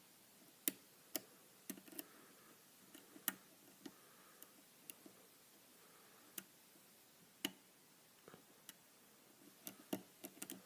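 Small, sharp metallic clicks at irregular intervals, a few closer together near the end: a lock pick lifting the pins of a pin-tumbler lock under light tension, the pins clicking as they set and drop.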